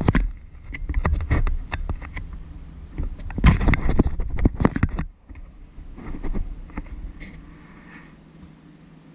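Handling noise from a hand gripping and adjusting the camera: irregular rubbing, bumps and clicks on the microphone with a heavy low rumble, loudest in the first five seconds, then only a few faint clicks.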